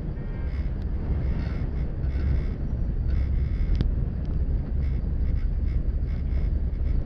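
Steady low rumble with wind buffeting the microphone, heard from inside a moving cable-car cabin. A single sharp click comes a little before four seconds in.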